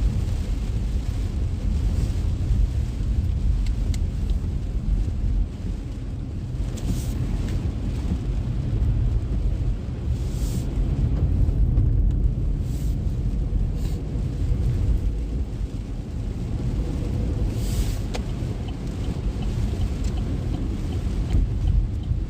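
Inside a car driving on a rain-soaked highway: a steady low rumble of tyres and engine on the wet road, with rain on the car. A few brief hissing swishes come through now and then.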